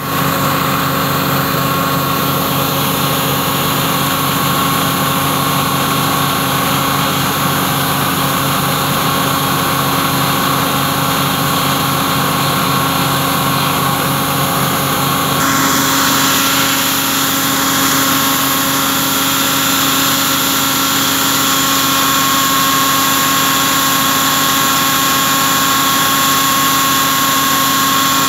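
An engine running steadily with an even hum; about halfway through its higher-pitched noise changes, but it keeps running.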